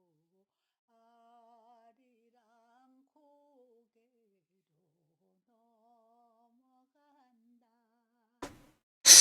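A man humming softly to himself, a slow wavering tune that stops and starts. Near the end comes a short puff and then a sudden, loud rushing burst of noise close to the microphone.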